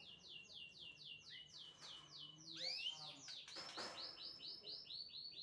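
Asian pied starling (jalak suren) singing: rapid runs of clear, downward-sliding whistled notes, about five a second, with a short break just past halfway before a new run begins.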